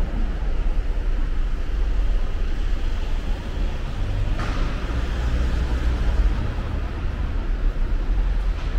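Steady low rumble of a car driving through an underground car park, with a brief rush of noise about four and a half seconds in.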